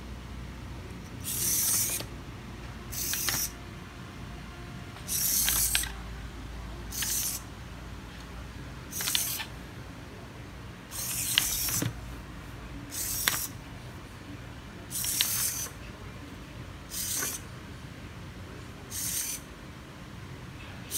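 Two hobby servos on a cardboard Arduino walking robot whirring in short bursts, about one every two seconds, as they swing its toothpick legs back and forth. Some bursts are longer than others.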